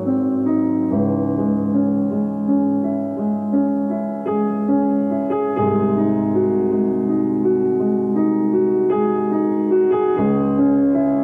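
Background music: a slow keyboard piece of held, overlapping chords that change every second or so.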